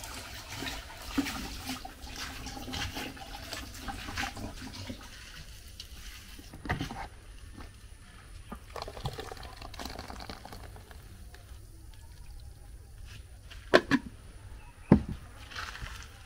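Liquid pouring and sloshing, with scattered small clicks and three sharp knocks near the end, two close together and then one more.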